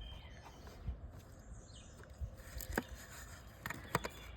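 Small plastic turn-signal parts being handled and fitted together: a few light clicks and knocks, three sharp clicks in the second half, over a low handling rumble.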